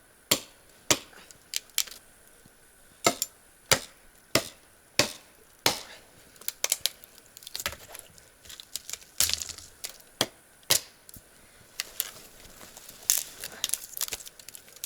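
Hatchet chopping dry wood: a series of sharp knocks, roughly one every half second or so with a few pauses, with softer crackling of wood in between.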